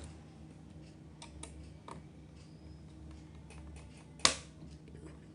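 Light clicks and taps of small hard objects being handled, with one much louder sharp click about four seconds in, over a steady low hum.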